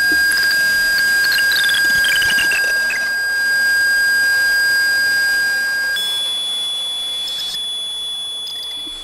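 Electronic tones from live improvised electronics: a loud, steady high tone held for about six seconds, then jumping to a higher held tone. A quick falling run of short blips sounds over the first three seconds.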